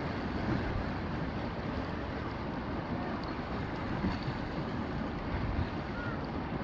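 Steady outdoor noise of wind and surf.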